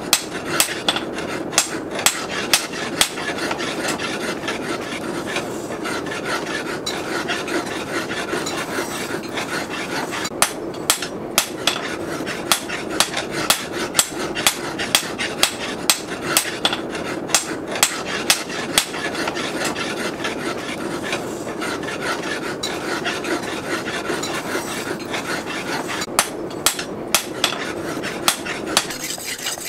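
Steady rasping and rubbing, with runs of sharp clicks about two or three a second.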